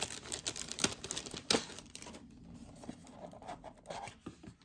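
A bag being rummaged through and a wrapped item handled, with dense rustling and small clicks for about two seconds, then quieter, scattered rustles and a few sharp ticks.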